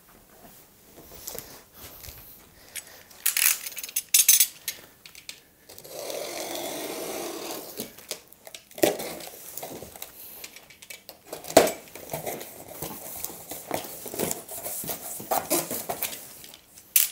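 A large cardboard box being handled and opened: a series of knocks and scuffs as it is set down and its flaps are pulled open, with a steady scraping of cardboard for about two seconds roughly six seconds in.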